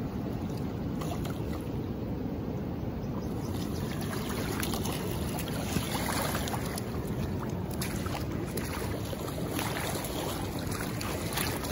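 Steady rush of river water with rain falling on it. From about three seconds in, short splashes and clicks are scattered over the wash.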